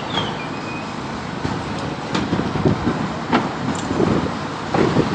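Steady road-traffic and site rumble, with three sharp knocks spread through it.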